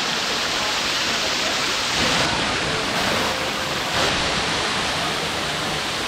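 Waterfall pouring over stepped rock ledges and splashing into a shallow pool: a steady rush of falling water.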